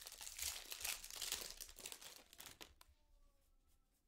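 Foil wrapper of a trading-card pack crinkling in the hands; it stops about three seconds in.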